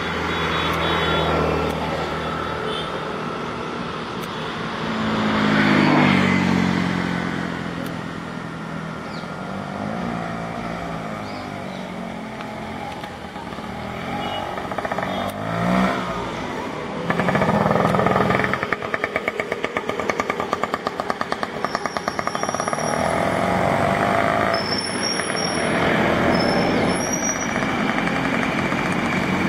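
Road traffic going by, one motor vehicle after another swelling and fading. One passes close about six seconds in, its engine note dropping as it goes by, and an engine's rapid pulsing is loudest just past the middle. A bird gives several short high chirps in the second half.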